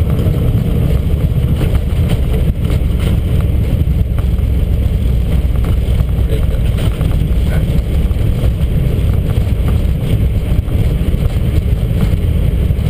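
Steady loud low rumble inside the cockpit of an Airbus A320 rolling down the runway after touchdown, decelerating under braking, with a few faint ticks and rattles.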